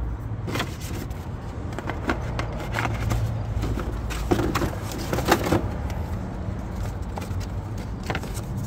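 Packaging being handled and opened by hand: a run of scrapes, clicks and rustles, busiest about four to five and a half seconds in, over a steady low hum.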